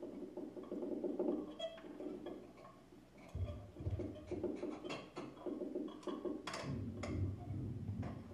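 Free-improvised music played on tabletop objects by two performers: a grainy, scratchy rubbing texture with scattered sharp clicks and a few low thuds.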